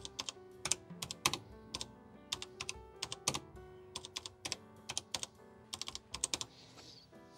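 Typing on an Apple IIe computer keyboard: a quick, irregular run of key clicks as letters are entered, with faint background music underneath.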